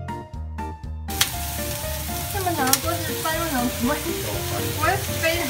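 Background music cuts off about a second in. Then fried fish cakes (tianbula) and green onion sizzle steadily in hot oil in a frying pan.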